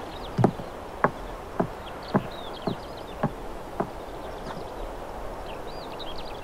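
Footsteps on wooden decking, about two steps a second, growing fainter and stopping about four seconds in as the walker moves away. Small birds chirp faintly in the background.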